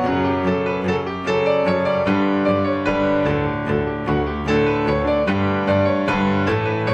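Background piano music: a steady flow of pitched notes with evenly spaced attacks, over held lower chords.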